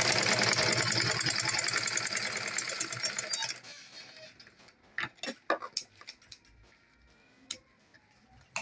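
Old-style black domestic sewing machine stitching fast and evenly as a zip is sewn onto a fabric panel; it stops about three and a half seconds in. A few light clicks and snips follow as the threads are trimmed with scissors.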